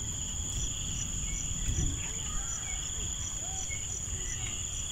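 Field insects droning in a steady high-pitched chorus, with one insect pulsing about two to three times a second, over a low background rumble.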